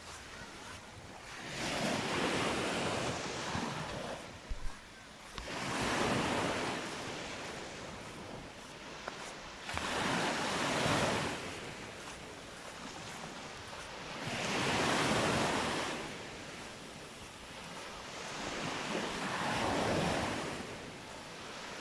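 Surf breaking and washing up a sandy beach, each wave swelling and fading about every four to five seconds.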